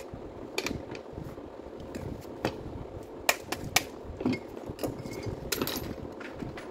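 Irregular sharp clicks and knocks of hard parts and hand tools being handled on a work surface, about a dozen, the loudest two close together a little past the three-second mark, over a faint steady hum.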